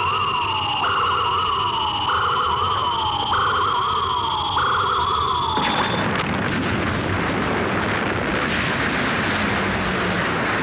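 Electronic warning alarm from a sci-fi spaceship's self-destruct, a note that jumps up and slides down about every second and a quarter over a whine rising slowly in pitch. About six seconds in it breaks off into the loud, continuing noise of the ship exploding.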